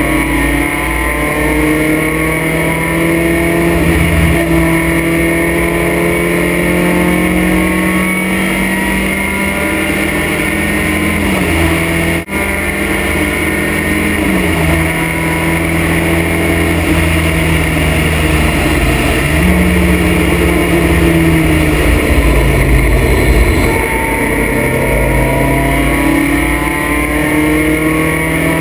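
Vintage race car's engine under racing load, heard from the open cockpit. Its pitch climbs and drops as the car is shifted and driven through corners, with a brief dip in the sound about twelve seconds in, over steady wind and road noise.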